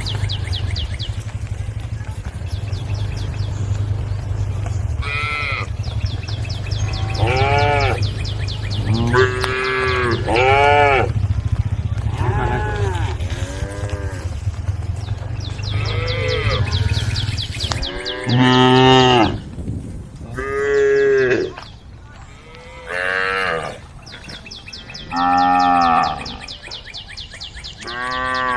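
Cows mooing repeatedly, about a dozen long calls one after another, some overlapping. A steady low hum runs under the first two-thirds of the calls and then stops.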